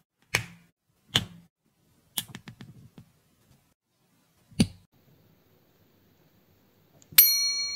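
LEGO plastic bricks clicking together by hand: a single click about half a second in, another a second later, a quick rattle of small clicks around two to three seconds, and one more sharp click near the middle. Near the end a bright bell-like chime rings out and slowly fades.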